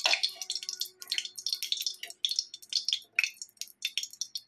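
Hot mustard oil, left over from frying cauliflower, crackling in an empty steel kadhai with irregular small pops.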